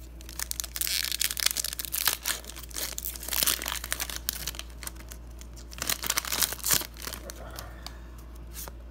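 Foil wrapper of a Pokémon trading card booster pack being torn open and crinkled in the hands: a quick run of sharp crackles that thins out near the end.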